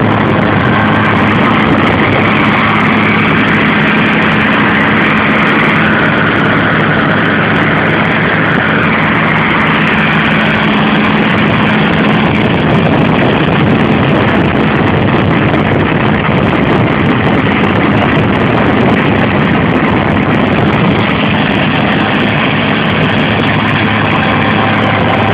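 Tractor engine running steadily under load, driving a Tozamet FG-650B soil stabilizer whose rotor churns through snow-covered soil; a steady low drone over a dense mechanical rumble.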